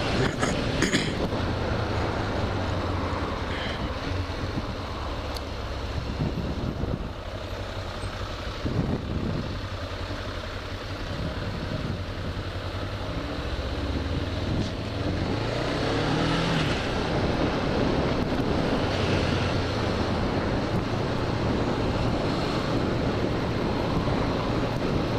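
Kawasaki motorcycle's engine running steadily while riding, under wind and road noise.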